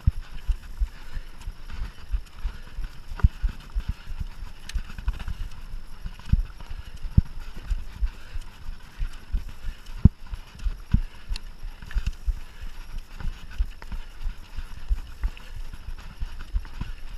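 Mountain bike ridden over a rough cross-country trail: a steady low rumble with irregular knocks and rattles, several a second, as it hits bumps. The hardest knocks come about seven and ten seconds in.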